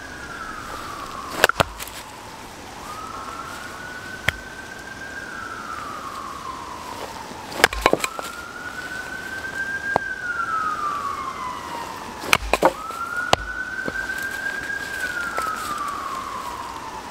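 A hatchet splitting firewood on a chopping block: a series of sharp knocks, a few seconds apart, some in quick pairs. Behind them, a siren-like wail slowly rises and falls, repeating about every five seconds.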